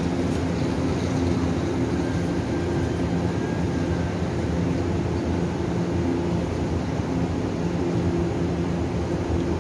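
Locomotive-hauled Taiwan Railway passenger train pulling out of the station and moving away, a steady hum and rumble with a few low droning tones.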